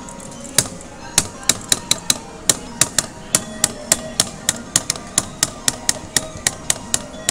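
A fast run of sharp knocks or taps, about three to four a second, starting about half a second in, over faint crane-game music.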